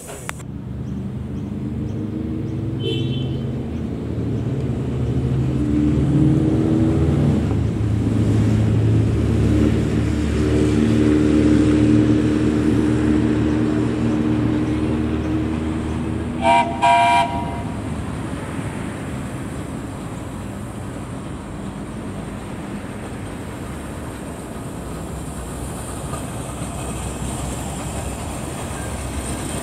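Small steam train running with a steady rumble that builds and then eases off, and the locomotive's whistle giving two short toots about sixteen seconds in.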